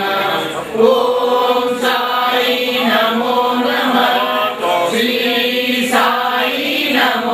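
A group of voices chanting a Hindu devotional mantra together in a sung, unbroken flow.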